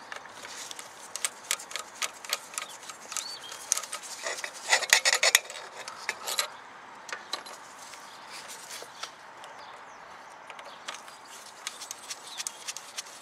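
Hand-tool clicks and metallic clinks as the Torx bolts holding a 2.0 TFSI high-pressure fuel pump are worked loose and dropped out. The clicking is thickest about five seconds in, then thins to occasional clicks.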